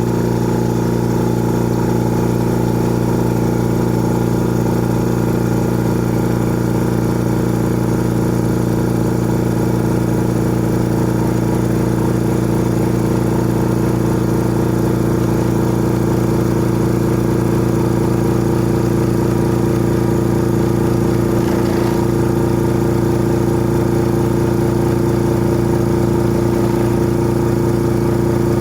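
Old air compressor running steadily: a constant motor hum with several strong, unchanging tones.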